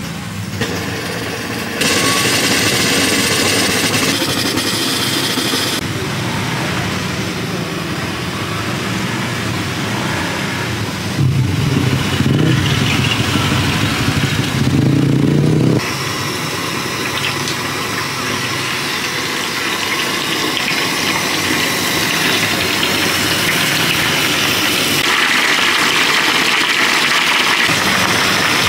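A motor engine runs as street noise. Near the end, hot oil sizzles steadily as sliced raw banana deep-fries in a wok.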